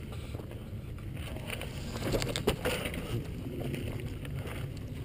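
Mountain bike descending a loose rocky trail, heard from a helmet camera: tyres crunching over rock and the bike rattling, over low wind rumble on the microphone. A cluster of sharper knocks comes about two seconds in.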